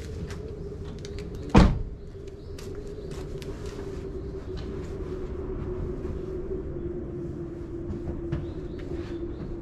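A car door shut once, a single sharp thud about a second and a half in, over a steady low hum whose pitch drifts slightly lower.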